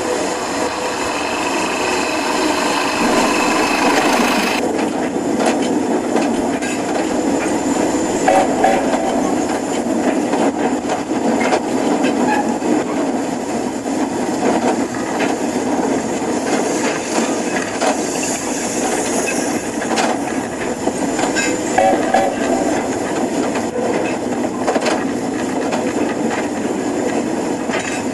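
HO-scale model trains running on track: a steady rolling and whirring noise from the locomotives and wheels on the rails, with scattered clicks.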